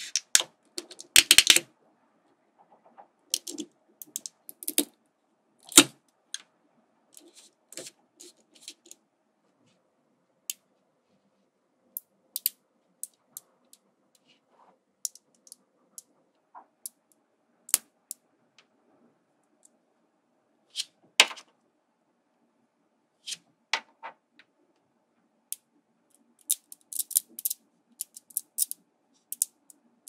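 Small magnetic balls clicking as they snap onto one another, in scattered single clicks and short rapid clusters, with a dense run about a second in and another near the end.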